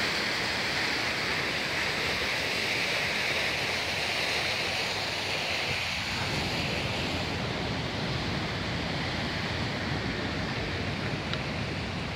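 Steady rushing of a waterfall on a forest stream, growing slightly fainter and duller from about halfway through.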